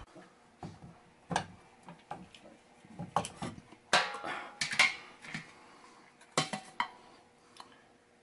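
Sheet-metal cover of a Franklin Electric submersible-pump control box being unscrewed and lifted off: a run of separate metallic clicks and clanks from the screwdriver, screws and cover, loudest about four to five seconds in.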